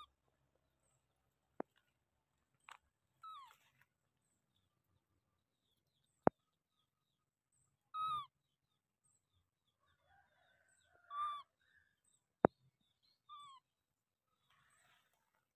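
Baby monkey giving short, high coo-like calls, about five of them, some falling in pitch, the loudest about eight seconds in. A few sharp clicks come between the calls.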